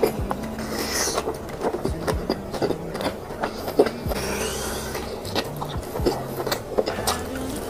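Close-miked chewing of a mouthful of crisp fried dumpling: irregular crunches and wet mouth clicks, several to a second.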